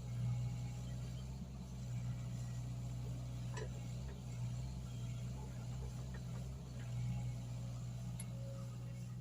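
Mini excavator engine running steadily with a low, even hum, with a few faint knocks.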